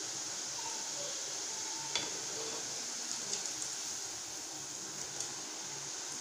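Rice-flour murukku deep-frying in hot oil, sizzling steadily, with a few light clicks of a perforated metal spoon as they are turned.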